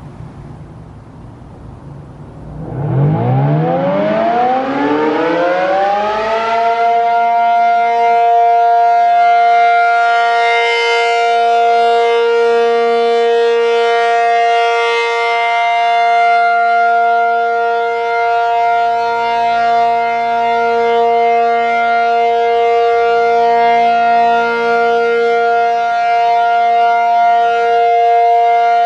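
ACA P-50 outdoor warning siren starting up after a couple of seconds of faint background noise. Its pitch rises for about four seconds, then settles into a loud, steady alert tone.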